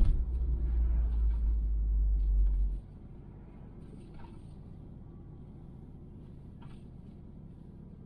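Deep, low rumble of car cabin noise inside a 1999 Subaru Forester STB. It cuts off abruptly about three seconds in, leaving a faint steady background with a few soft ticks.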